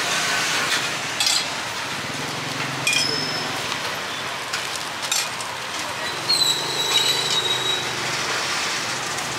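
Metal spoons and ladles clinking against stainless steel bowls as desserts are scooped into plastic bags, several sharp clinks, one ringing on for about a second. Underneath runs a steady street-market background of traffic and distant voices.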